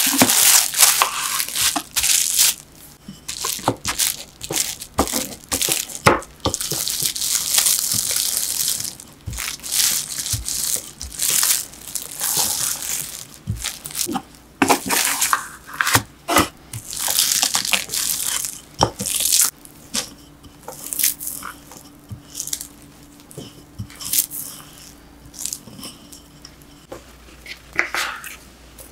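Plastic cling wrap crinkling and rustling in irregular bursts as crumbly kinako dough wrapped in it is folded and pressed flat under a wooden rolling pin on a wooden board.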